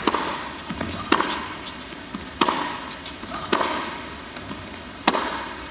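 Tennis serve followed by a rally: sharp racket-on-ball hits about every one to one and a half seconds, five or six in all.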